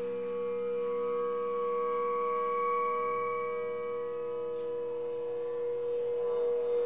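Layered drone of several steady held tones from an improvisation on self-made instruments, with a higher tone swelling up and fading through the middle.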